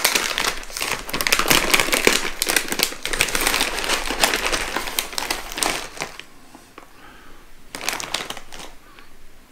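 Plastic snack bag of coated peanuts being opened and crinkled as a hand digs into it, for about six seconds; then it goes quieter, with one short rustle near the end.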